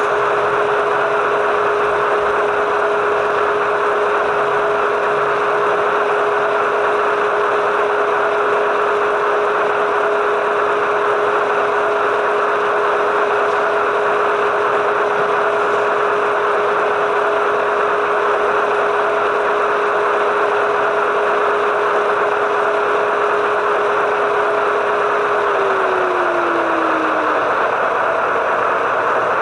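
Sound-equipped HO scale GE AC6000CW model locomotives playing a steady sixteen-cylinder turbo diesel engine sound through their onboard speakers. A steady high whine over the engine sound drops in pitch near the end.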